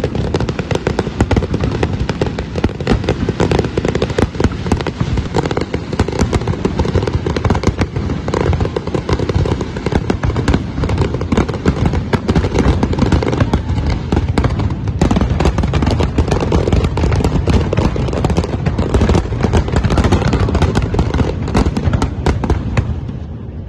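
Fireworks display: a dense, continuous barrage of shell bursts, with rapid overlapping bangs and crackling over a deep rumble, easing off near the end.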